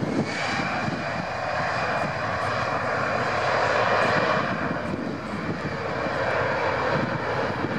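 Airbus A320's CFM56-5B turbofan engines running at taxi power as the jet taxis and turns: a steady rushing hiss with a thin high whine over it, swelling slightly about halfway through.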